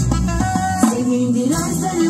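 Live Azerbaijani pop music from a band with a woman singing the lead vocal, loud and steady. The deep bass thins out for about a second from half a second in.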